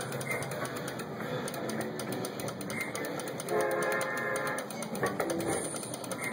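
Merkur Rail Road slot machine playing its game sounds as the reels spin, with a chord-like train-whistle effect sounding for about a second midway.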